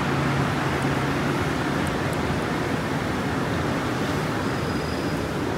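Rubber-tyred Montreal Metro train moving along the station platform: a steady, loud rumble with a low hum running under it.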